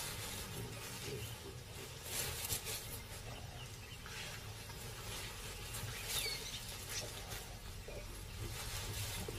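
Faint sounds of baboons foraging through elephant dung: soft rustling and scraping strokes over a low steady rumble, with a short falling chirp about six seconds in.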